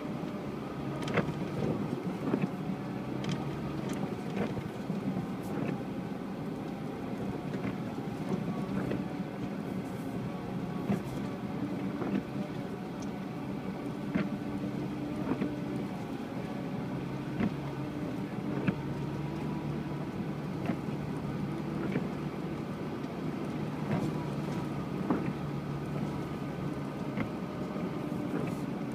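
UAZ Patriot engine running steadily while the vehicle drives off-road, its pitch wandering slightly with the throttle, with frequent short knocks and clicks over the engine note.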